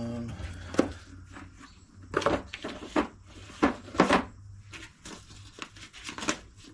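A socket set's case and tools being handled: about half a dozen short knocks and rustles, the loudest a few seconds in.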